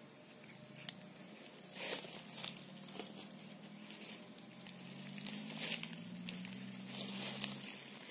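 Knife scraping and tapping on a small fish on a wooden tree stump as it is cleaned: a few short, irregular scrapes.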